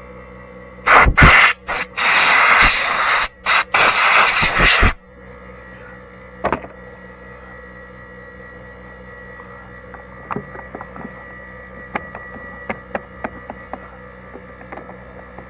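Several loud bursts of hissing air, some short and some over a second long, in the first five seconds: compressed air blowing dirt off a Stihl MS180 chainsaw's parts. Later, light clicks and taps of the saw's parts being handled, over a steady hum.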